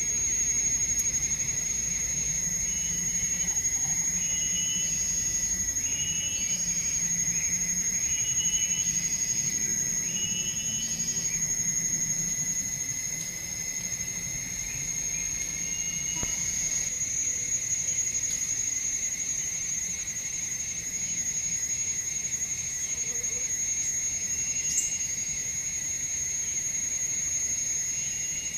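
Forest insects: a steady high-pitched drone over a lower steady trill. A run of short repeated chirps comes from about three to eleven seconds in.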